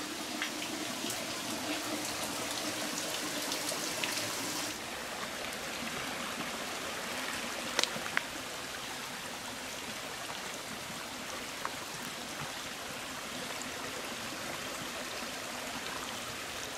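Shallow stream trickling and running over granite rock. The sound changes abruptly about five seconds in, and a couple of sharp clicks come about eight seconds in.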